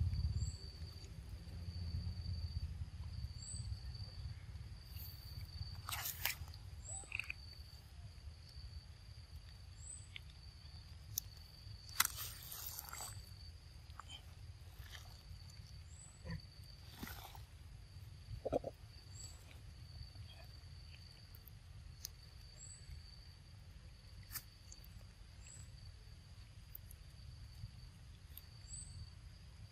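Quiet outdoor ambience: a steady low rumble under a high, pulsing insect drone at one pitch, with a faint short chirp repeating about every two seconds. A few soft clicks and taps are scattered through it, and there is one short low squeak about two-thirds of the way through.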